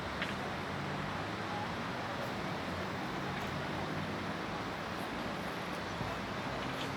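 Steady seaside ambience: an even wash of surf and wind noise on the microphone, with a faint low hum beneath and one brief click just after the start.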